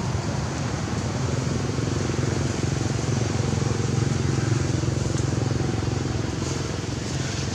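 Motorbike engine idling steadily with a low, even hum.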